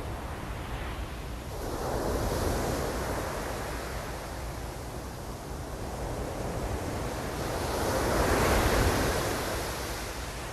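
Ocean waves breaking on the shore, two surges of surf wash about two seconds in and again, louder, near the end, over a steady low rumble that may include wind on the microphone.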